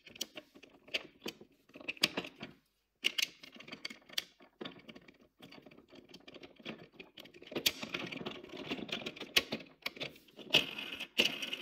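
Irregular small clicks, taps and rattles of 3D-printed plastic parts being handled and fitted together: gears and side walls of a gearbox pressed into place by hand, busier in the second half.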